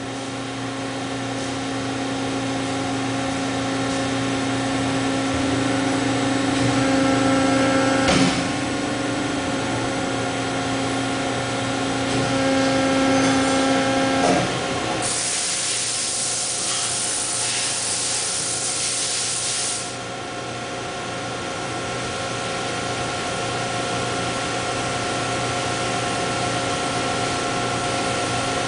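Hydraulic system of a 795-ton hydraulic molding press running through a cycle: a steady pump hum with a whining tone that stops suddenly, and a clunk about eight seconds in and another about fourteen seconds in. A hiss lasting about five seconds follows, then the pump hum runs on steadily.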